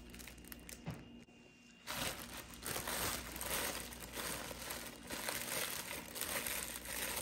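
Plastic oven bag crinkling and rustling as hands gather it closed around a ham, starting about two seconds in and continuing steadily.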